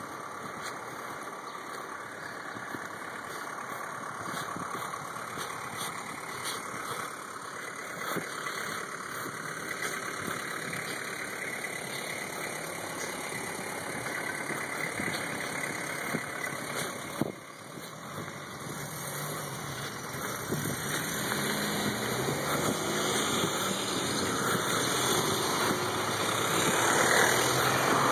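Street traffic: cars driving past on the road, with a vehicle's engine growing steadily louder over the last several seconds as it comes closer. A single short knock about two-thirds of the way through.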